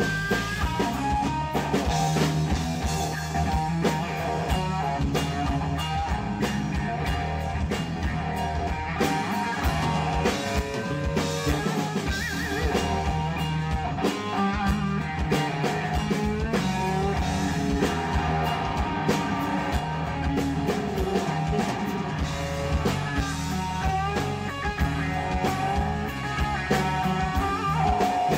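Live rock jam: an electric guitar plays a lead solo of bent, wavering notes over electric bass and a drum kit.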